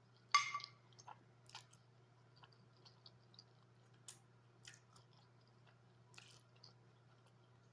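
Close-miked chewing of a mouthful of loaded spaghetti: soft, wet mouth clicks and smacks scattered throughout, with one louder smack about a third of a second in, over a faint steady low hum.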